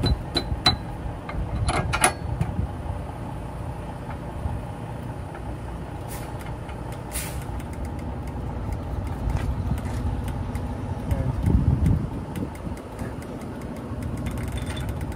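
Sharp metal clinks of tools and bolts in the first two seconds, over a steady low vehicle rumble, with a brief hiss about seven seconds in.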